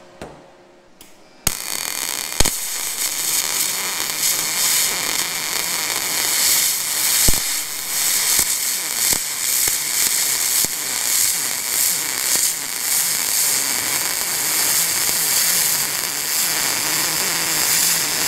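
MIG welding arc on aluminum, 0.035 in 4043 wire in straight DC with no pulse. A steady crackle starts suddenly about a second and a half in, with a few sharper pops along the way.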